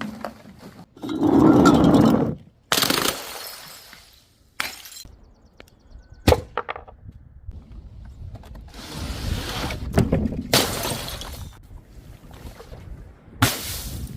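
Glass bottles and jars smashing, one after another: about six separate crashes, some sharp with brief ringing and some longer, with glass fragments scattering.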